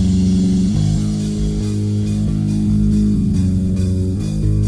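Heavy metal song playing without vocals: a distorted guitar and bass riff of low held notes over a steady drum beat with cymbal hits.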